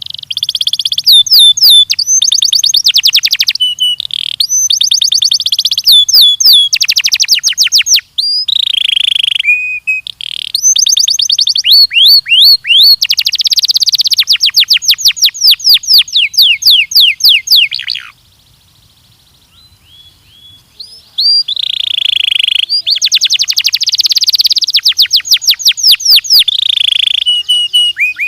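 Belgian canary singing a loud song of fast trills and rolls, rapid strings of repeated high notes, broken by a pause of about three seconds past the middle before the song resumes.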